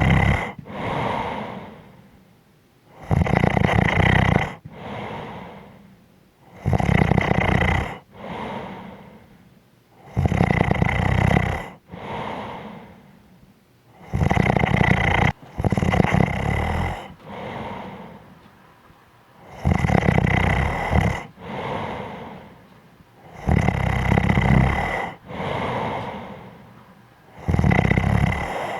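A person snoring in a steady rhythm: a loud snore, then a softer, shorter breath, repeating about every three and a half to four seconds.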